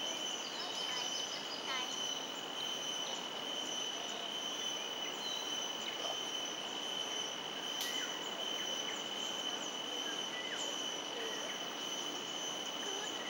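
Outdoor ambience under trees: a steady high insect drone over a general hubbub with faint distant voices. A quick run of high chirps comes about a second in, and a single sharp click about eight seconds in.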